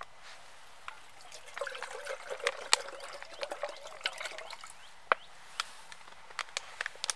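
Water being poured, a trickling pour lasting about three seconds, with sharp clicks and taps before and after it.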